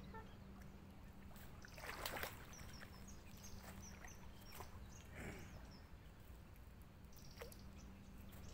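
Brief splashing of a small hooked catfish as it is drawn through the shallows and lifted out of the water: the loudest splash comes about two seconds in, a smaller one a little after five seconds. Faint high chirps and a few light clicks are heard between them.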